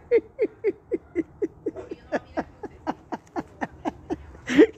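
A man laughing hard: a long unbroken run of short 'ha' pulses, about four or five a second, each dropping in pitch.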